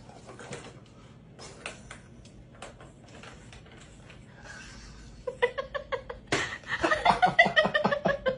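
Light knocks and plastic clatter from a cat's tiered track-and-ball toy. A person breaks into laughter about five seconds in, and the laughter is the loudest part.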